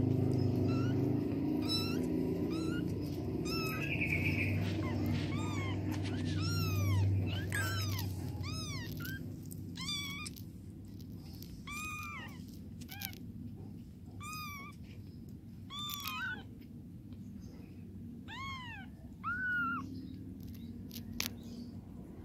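Newborn kittens mewing as the mother cat licks them: short, high-pitched cries that rise and fall, coming about once a second, with a low rumble under them for the first several seconds.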